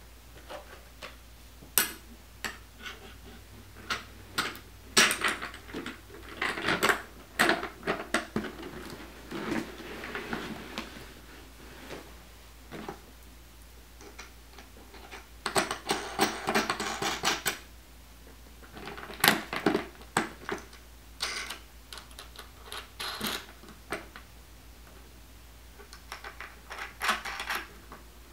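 Irregular clicks, taps and clatter of stiff plastic costume panels being handled and bolted together, with small bolts and nuts fitted and turned with pliers, broken by a few longer spells of rustling plastic.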